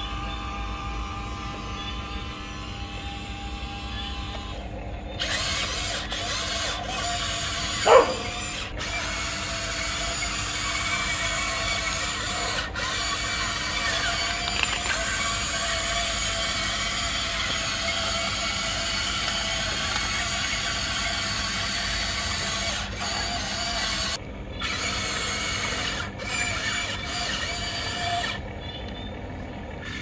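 Electric motors and gearing of a Huina RC excavator whirring as the boom, arm and bucket move. The whirring starts about five seconds in, cuts out briefly a few times and stops near the end. A short loud blip comes about eight seconds in.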